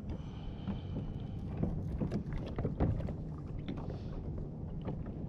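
Water lapping against a kayak's hull, with wind rumbling on the microphone and scattered small knocks and clicks.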